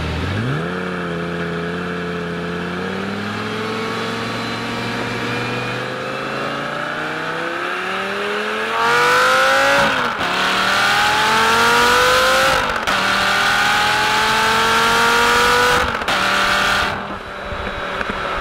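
Lamborghini Gallardo Spyder's V10, heard from the open cabin, accelerating gently with its pitch climbing slowly. About halfway through the throttle opens and it gets louder, pulling hard through three quick upshifts in a row, then eases off near the end.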